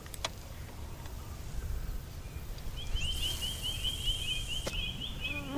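A bird calling in a fast run of short, evenly repeated chirps, starting about three seconds in, over a steady low outdoor rumble.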